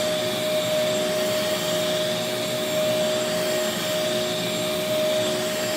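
Bissell DeepClean Professional Pet carpet cleaner running steadily, its suction motor a constant whine over an even rushing hiss as it sprays water onto the carpet and sucks it back up.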